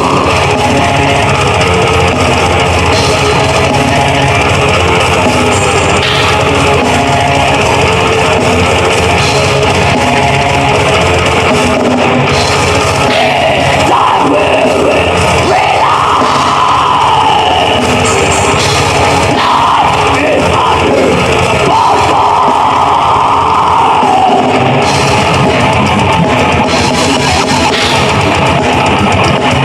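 Heavy metal band playing live: loud, dense distorted electric guitars over a drum kit.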